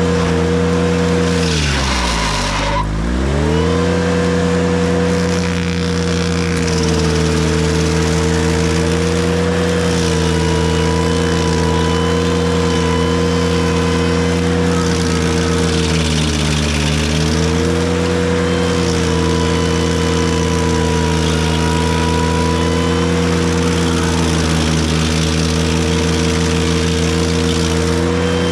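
Ventrac tractor's engine running at high revs to drive a KC220 stump grinder. Its pitch sags sharply about two seconds in and again, more gently, around sixteen seconds, then recovers each time as the cutter wheel bites into the stump and loads the engine.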